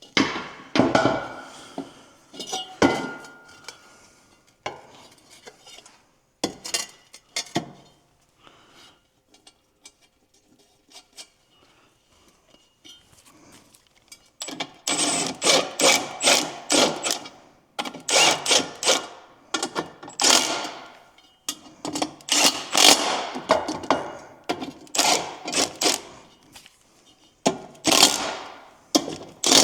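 Hand tool running down the assembly bolts of a three-piece wheel: a few scattered metal knocks and clicks at first, then from about halfway a steady run of repeated sharp rasping strokes, about two a second.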